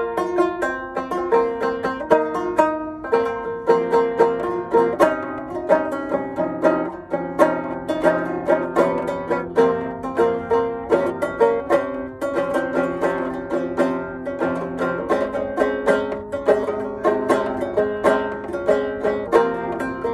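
Banjo played solo: an improvisation in the Phrygian mode, a continuous run of quick plucked notes, several a second, ringing into one another.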